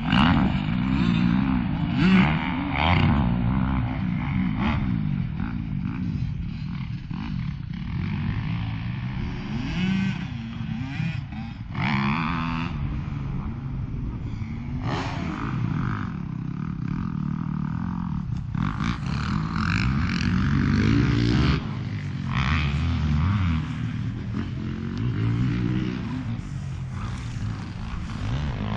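2007 Honda Ruckus 49cc single-cylinder four-stroke scooter engine running under way, its pitch rising and falling with the throttle, with surges of wind noise over the microphone.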